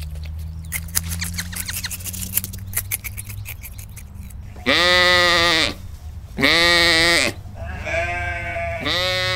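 Sheep bleating: four long, wavering bleats in the second half, the last two close together. Before them there is a run of scattered faint clicking and rustling.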